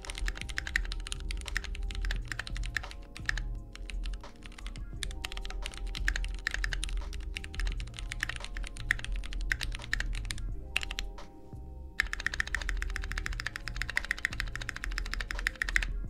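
Fast typing on a Keychron mechanical keyboard with Gateron brown tactile switches: a dense, rapid run of key clacks over background music. The typing changes in sound abruptly about twelve seconds in.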